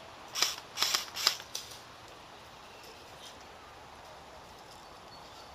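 M16-style airsoft rifle fired three times in quick succession, sharp snapping shots a little under half a second apart, followed by a fainter click.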